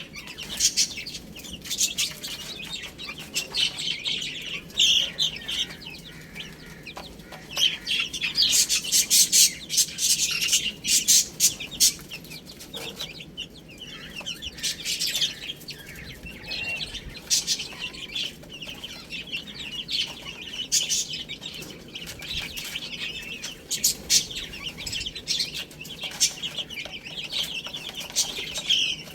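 Baby chicks peeping continuously, many short high-pitched calls overlapping, with a scatter of short sharp clicks among them.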